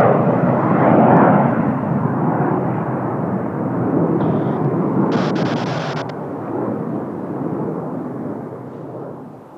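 Kawasaki T-4 jet trainers flying in formation, a broad rumble of their turbofan engines that slowly fades as they fly away.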